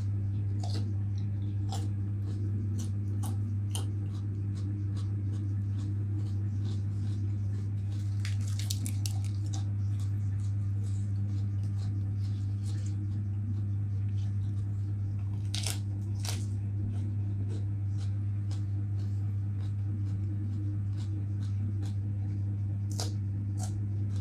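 Close-up crunching and chewing of raw vegetables, with crisp crunches all through and louder bursts of them about a third of the way in, around two-thirds of the way in and near the end. A steady low electrical hum runs underneath.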